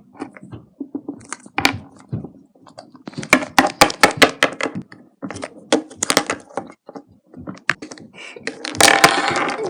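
Small plastic toy figures and props being handled and set down on a hard surface: a scattered run of sharp clicks and taps, with a denser rustling clatter near the end.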